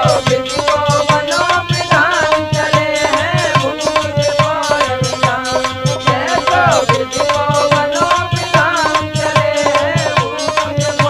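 Instrumental interlude of Indian folk story-song music: hand drums keep a quick steady beat of about three to four strokes a second while a melody instrument plays bending phrases over a held note.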